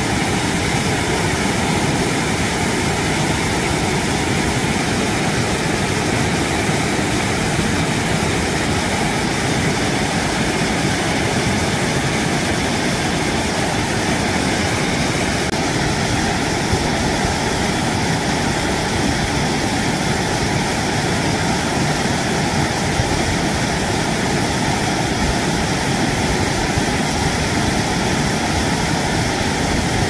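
Waterfall pouring down a rock chute, a loud, steady rush of white water that does not change.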